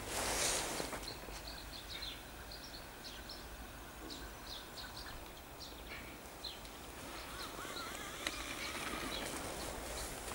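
Small birds chirping in a quick series of short high calls, with footsteps crunching in snow about the first second.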